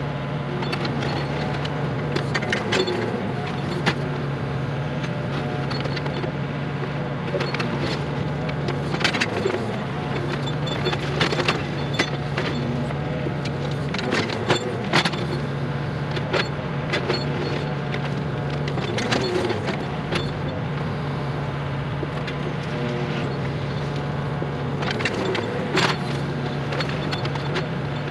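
Scattered knocks and clatter of old barn stones being knocked loose from a foundation wall, over a steady low engine hum that drops out now and then.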